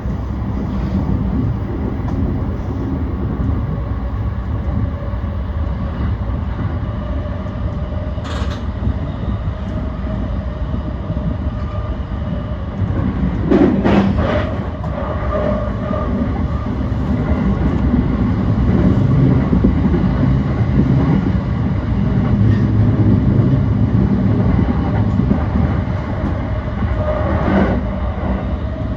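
E235-1000 series electric train running on the rails: a steady rumble of wheels on track, with a few sharp clacks over rail joints or points about 8 seconds in, around 14 seconds in, and near the end.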